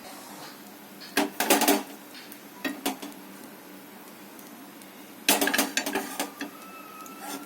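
A cooking utensil clattering and scraping against a metal pan in three short bursts: one about a second in, a brief one near three seconds, and a longer one a little after five seconds.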